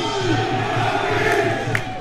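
Football crowd in the stands shouting and chanting, many voices overlapping at a steady level.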